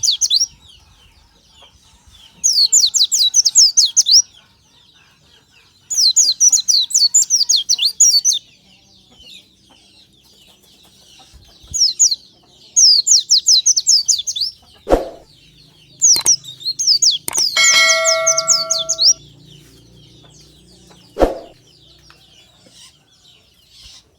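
White-eye (pleci) singing: rapid high twittering phrases in bursts of one to two seconds, repeated every few seconds. A few sharp knocks are heard midway and near the end, and a short steady ringing tone comes in around two-thirds of the way through.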